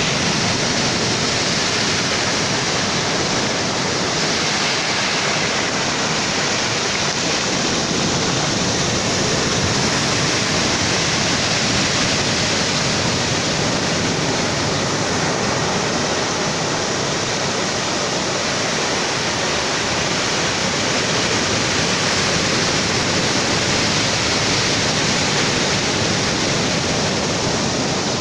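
Ocean surf breaking on a beach, heard as a steady, unbroken rush of water noise with no rise and fall of separate waves.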